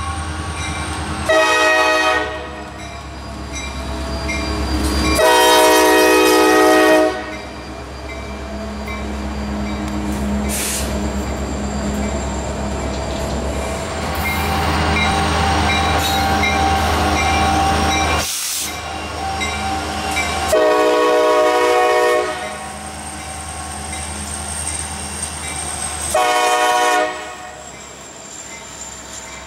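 Norfolk Southern freight train passing close by: the diesel locomotive's horn sounds four times, a short blast about a second in, a longer one about five seconds in, then two more about twenty and twenty-six seconds in. Between them runs the low rumble of the locomotive and the steady rolling of freight cars over the track.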